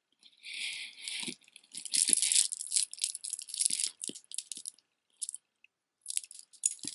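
Costume-jewelry necklace beads clicking and rattling together as the pieces are handled, in dense spells with a lull about five seconds in, then starting again near the end.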